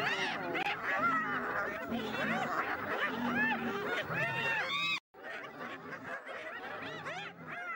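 A pack of spotted hyenas giggling, many quick rising-and-falling calls overlapping one another. The sound cuts out abruptly about five seconds in and comes back quieter.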